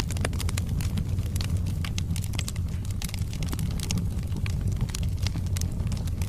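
Wood fire burning in a fireplace: logs crackling with many irregular small pops over a steady low rumble of the flames.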